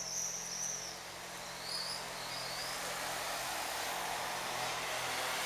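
Street ambience: a few short, high bird chirps in the first two seconds, then a steady rushing noise that grows louder from about two seconds in.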